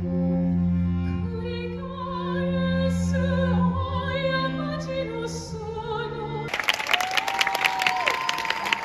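Live string ensemble with cello holding long low notes under a singer's wavering, vibrato-laden line. The music ends about six and a half seconds in and audience applause and cheering break out.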